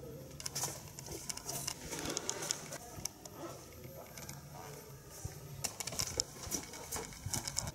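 Footsteps on a hard corridor floor, irregular taps, over a low steady hum.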